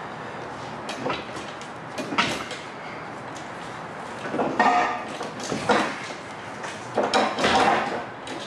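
An engine being pulled free on an engine crane's chains: about five separate metal scrapes, creaks and clanks, some with a short squeal, plus brief high chain clinks, as the engine is worked loose from the engine bay.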